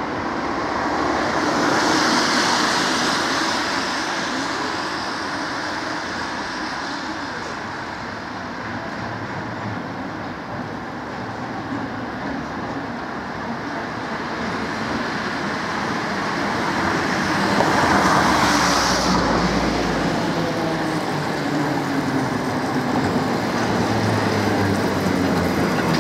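Street traffic on a wet road: cars pass with tyre hiss, loudest about two seconds in and again around eighteen seconds. In the last few seconds an old four-wheel tram draws close and its running grows louder.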